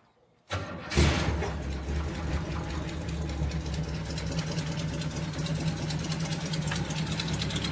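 A 1967 Camaro's 350 small-block Chevy V8 being started: it cranks briefly about half a second in, catches with a short burst of revs, and settles into a steady idle.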